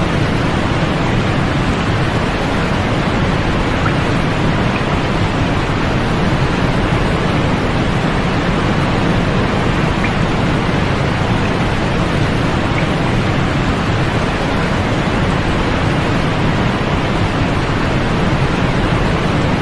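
Steady white noise for sleep: an even, unchanging hiss, heavier at the low end and soft in the highs.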